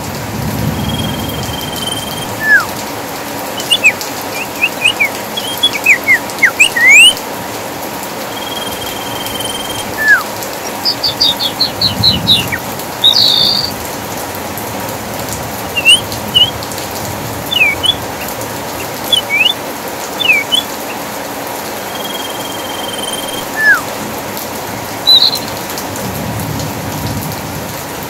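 Small songbirds calling over a steady hiss of rain: a short level whistle repeated every few seconds, single falling notes, a quick series of high chips, and scattered sweeping notes. Low thunder rumbles come in about twelve seconds in and again near the end.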